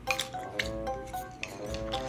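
Background music: a melody of held notes stepping from pitch to pitch, with a few light clicks over it.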